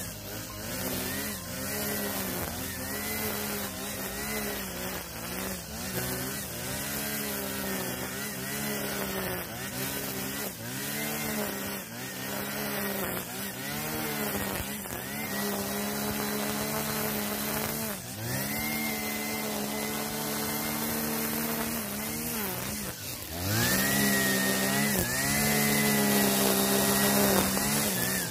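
45 cc brush cutter with a nylon line head cutting grass, its engine revving up and down about once a second. About 23 seconds in the engine dips briefly, then runs louder at steadier high revs.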